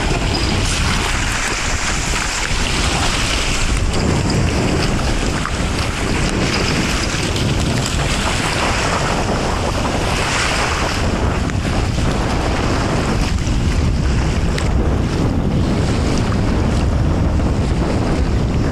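Steady wind noise on the microphone over shallow sea water sloshing and splashing as a Dogue de Bordeaux wades and swims through it.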